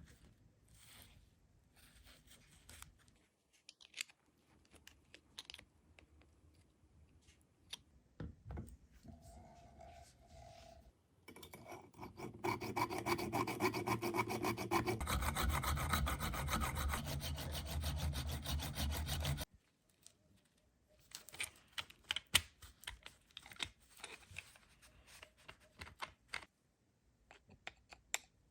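Hand tool scraping back and forth on the rusty revolver's metal parts in fast strokes. The scraping is continuous and loudest for about eight seconds in the middle, with lighter scattered scrapes and clicks before and after.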